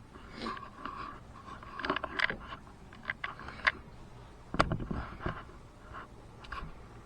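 Scattered small clicks, taps and scrapes of things being handled, with one dull thump about four and a half seconds in.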